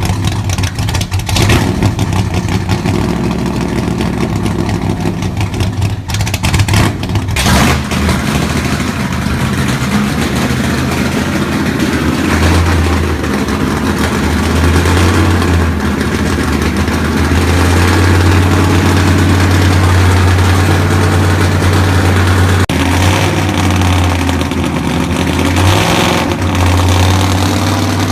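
Freshly built Ford 289 small-block V8 running during its cam break-in after first fire. It runs unevenly with surges for the first several seconds, then settles into a steadier run.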